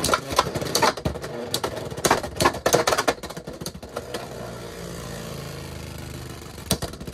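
Two Beyblade X tops, Tyranno Beat 4-80 Rush and Phoenix Wing 7-60 Rush, battling in a clear plastic stadium. For the first few seconds they clash in quick, sharp plastic-on-plastic clacks. Then comes a steady whirring hum as they spin on the stadium floor, with another burst of clacks near the end.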